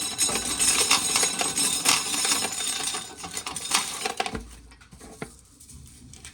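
Dry corn being shelled, the kernels rattling and clinking in a quick jumble that dies away about four seconds in, leaving a couple of faint clicks.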